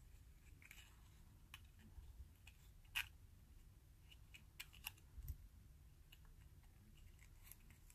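Near silence with a few faint clicks and taps from fingers handling a folded paper die; the sharpest tick comes about three seconds in, and a few more come a couple of seconds later.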